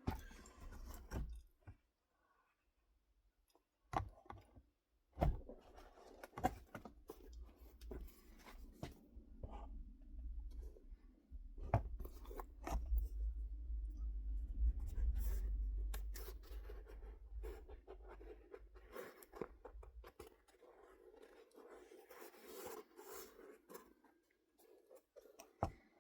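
Handling noises of a shoe unboxing: a shoebox and its wrapping being opened and moved about, with soft rustling and scraping, scattered sharp knocks and clicks, and a low rumble of handling in the middle.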